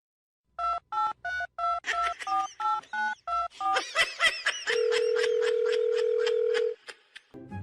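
Telephone keypad tones: about ten short two-note beeps dialed in quick succession, then a steady single tone held for about two seconds, with clicks and high chirping sounds around it.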